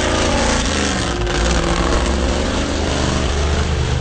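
Lifted mega truck's engine running hard at full throttle as its oversized tires spin and spray dirt, a steady loud drone under a rushing haze.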